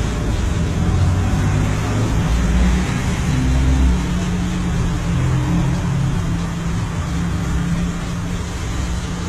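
Steady low rumble of street traffic with engines running close by.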